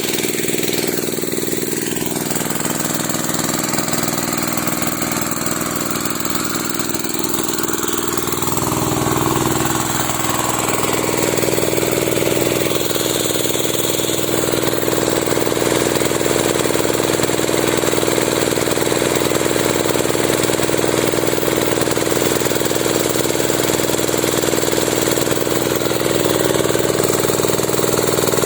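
Small engine of a Sanchin MS30 power sprayer running steadily, picking up speed and getting a little louder about nine seconds in.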